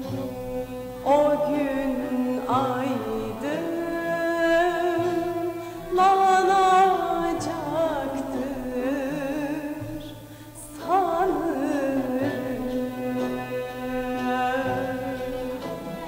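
A woman singing a slow Turkish song with instrumental accompaniment, holding long notes with a wide vibrato. Her phrases enter several times, with a brief lull near the middle.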